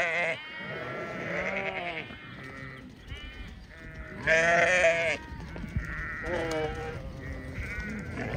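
A flock of sheep bleating: several animals calling one after another at different pitches, each bleat wavering, with the loudest about halfway through.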